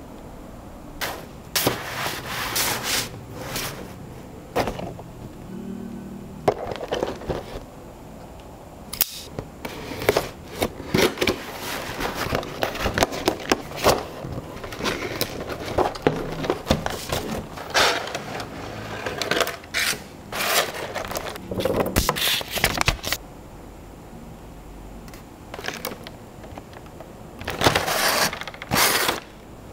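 Nendoroid figure's cardboard window box and clear plastic blister tray being handled and opened up close: scattered scrapes, rubs and crackles of card and stiff plastic. It goes quieter for a few seconds near the end, then comes louder plastic crinkling as the tray is pulled out.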